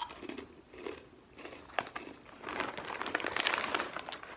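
A plastic snack-chip bag crinkling as it is handled, with a chip crunched between the teeth. The crackling is densest late on.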